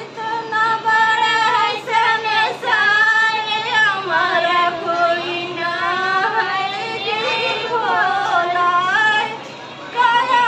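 Women singing a devotional song together, with long drawn-out notes that bend up and down in pitch and only short breaks between phrases.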